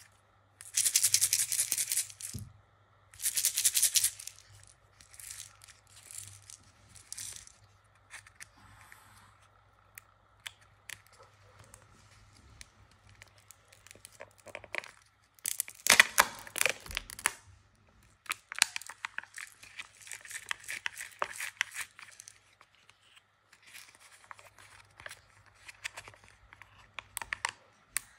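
Crinkling and tearing of plastic packaging as a plastic surprise egg is squeezed, pried open and its sealed lid peeled off. It comes in separate bursts: two loud crinkles in the first few seconds, another loud one about halfway through, then quieter crinkling and small clicks.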